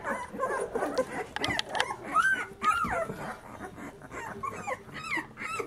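Young puppies of a litter squealing and whining, a string of short, high cries that rise and fall in pitch, as they jostle for teats under their standing mother.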